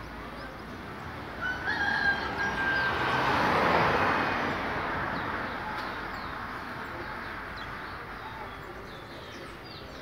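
A rooster crowing, a held call about a second long, followed by a swell of noise that fades out over a few seconds. Faint short high bird chirps run throughout.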